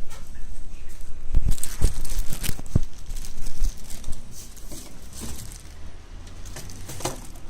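Crinkling and rustling of material being handled, with several soft knocks, busiest and loudest in the first few seconds and then dying down.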